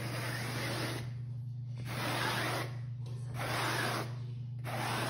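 A wooden craft stick scraping wet acrylic paint down a canvas: four long scraping strokes about a second apart, over a steady low hum.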